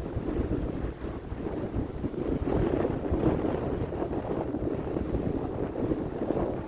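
Strong, gusty wind blowing across the microphone: a low rumbling noise that swells and eases with the gusts.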